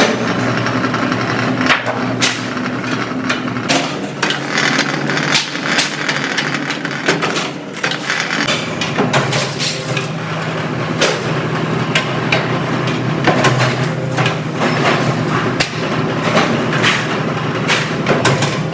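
Workshop noise on a washing-machine production floor: frequent sharp metal knocks and clanks, like hammering and tool work, over a steady machine hum.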